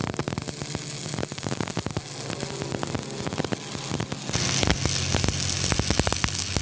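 Stick-welding arc crackling steadily over the welding machine's mains hum. The arc gets louder and hissier about four seconds in.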